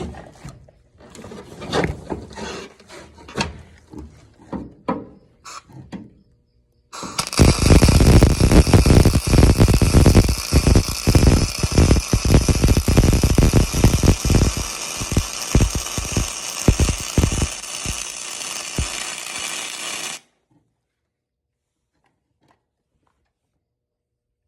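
Scattered knocks and clatter of tools being handled, then a power tool runs loud with a rapid hammering rattle for about thirteen seconds and cuts off suddenly.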